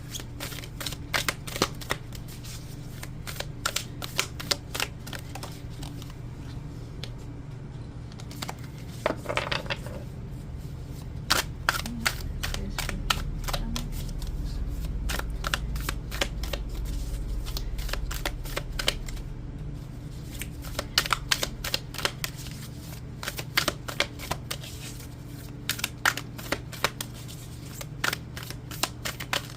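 A deck of oracle cards being shuffled by hand: clusters of quick flicking, snapping card sounds broken by short pauses, over a steady low hum.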